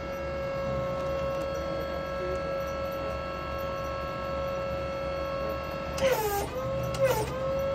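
Electric forklift's motor whining steadily at a high pitch with many overtones as the forks are worked; twice near the end the pitch dips sharply and comes back up.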